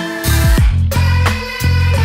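Electronic music with a heavy bass and a steady beat, an instrumental stretch of the track with a falling bass sweep about half a second in.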